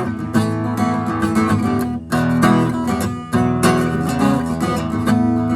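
Acoustic guitar strummed steadily in chords, the instrumental introduction to a folk song.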